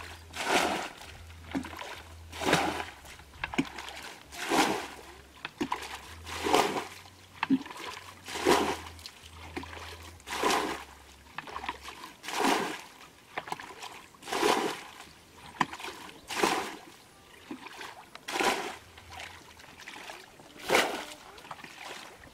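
Muddy ditch water being bailed by hand with a plastic bucket: a scoop and a splash of thrown water about every two seconds, in a steady rhythm, as the ditch is emptied to get at the fish.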